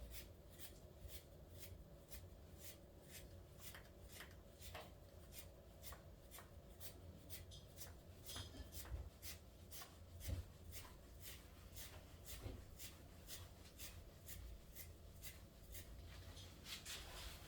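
Faint, even scratching strokes, about two to three a second, of a coarse hand-stripping tool pulled through a dog's dead, blown coat, pulling out the shedding undercoat.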